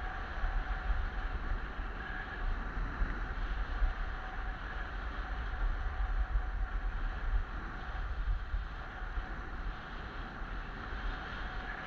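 Wind buffeting the microphone in a low, gusty rumble during a fast ski descent, over a steady hiss of skis sliding on packed, groomed snow.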